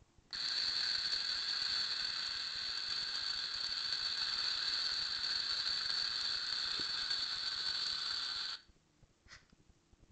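Electronic hissing sound effect from a small handheld battery toy, a steady hiss with a few held tones over it. It starts suddenly, lasts about eight seconds and cuts off abruptly.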